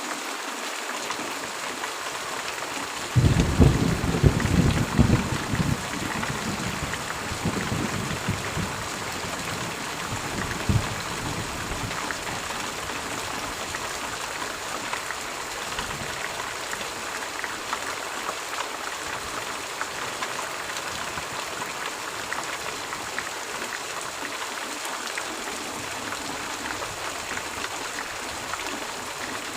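Steady rain falling, with a low rumble of thunder starting about three seconds in and fading away over the next several seconds, and one more short low rumble near eleven seconds.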